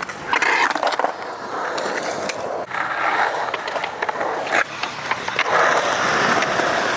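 Skateboard wheels rolling over a concrete skatepark surface, with a few sharp clacks from the board.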